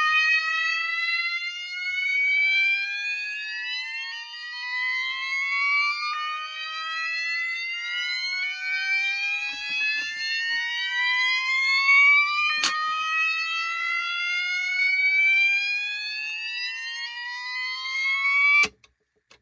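Two fire alarm sounders set to slow whoop, one a Gentex GOS, sounding together out of step, so their slow rising whoops overlap and repeat every few seconds. A sharp click comes about two-thirds of the way through, and the alarms cut off suddenly near the end.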